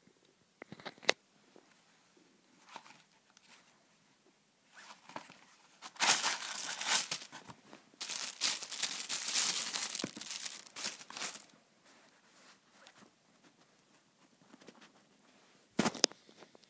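Unboxing a charging cable: a couple of sharp clicks from the cardboard box about a second in, then the thin clear plastic bag around the cable crinkling loudly for about six seconds as it is handled and opened. A short sharp knock near the end.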